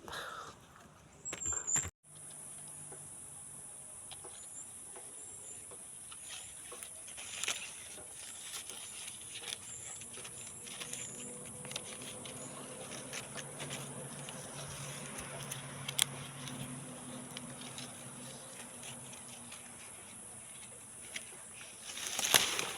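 Steady high-pitched drone of insects, with scattered light clicks and rustles over it.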